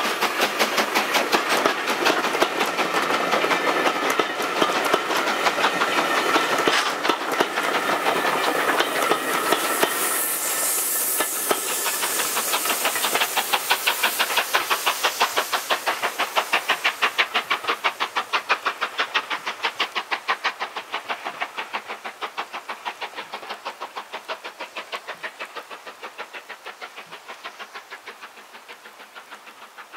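LMS Black Five 4-6-0 steam locomotive, a two-cylinder engine, working away with its train of coaches. Its exhaust beats rapidly and evenly, mixed with the rhythm of the wheels on the rail joints, and a burst of steam hiss comes about ten seconds in. The sound fades steadily as the train draws into the distance.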